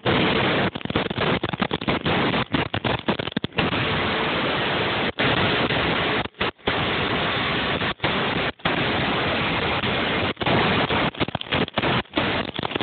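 Heavy wind rushing over a phone's microphone on a snowmobile moving at high speed. The loud, steady rush cuts out briefly many times.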